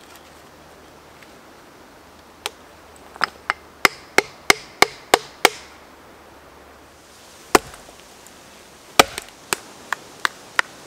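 An axe being driven into the end of a maple log along the pith by blows from a wooden log used as a mallet, to split it. A rapid run of sharp knocks about three a second, a pause, a single heavy blow, then a second, slower run of knocks.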